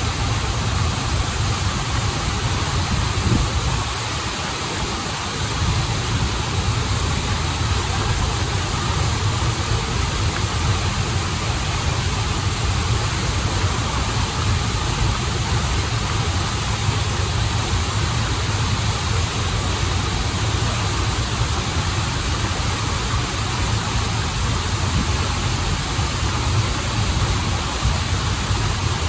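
Waterfall and stream water running in a steady, dense rush with a deep rumble underneath, dipping slightly about four seconds in.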